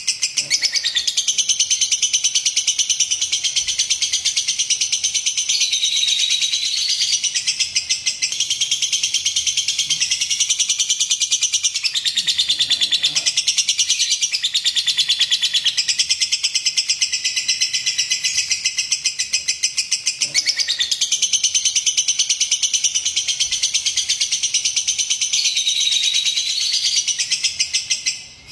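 Lovebird song: a long, rapid, unbroken high-pitched chattering trill with brief dips in pitch, cutting off near the end.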